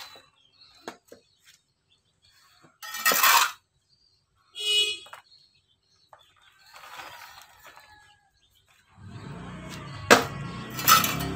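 A hand trowel scooping a potting mix of rice husk, soil and manure and tipping it around a coconut sprout in its pot: short scrapes and rustles with pauses between, a short ringing clink about five seconds in, and louder rustling with sharp clicks near the end.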